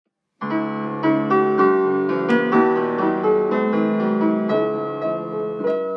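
Instrumental piano music, a gentle melody over held chords, starting about half a second in after a brief silence.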